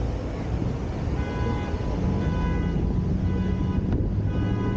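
Downtown street traffic rumbling steadily, with a pitched beep sounding in short repeated blasts about once a second from about a second in.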